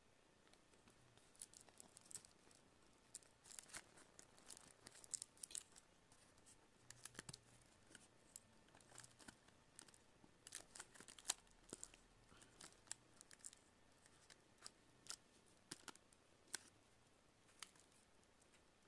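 Faint, irregular clicks and short scrapes of a small hand tool working at a tablet's plastic case and glued cover.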